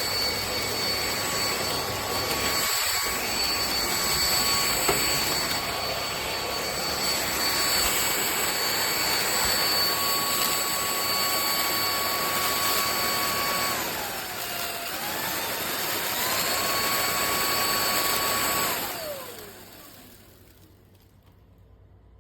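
Lubluelu cordless stick vacuum running, its brushless motor giving a steady high whine over the rush of air. Around two-thirds through, the whine dips in pitch and recovers. Near the end the vacuum is switched off and the whine slides down as the motor winds down.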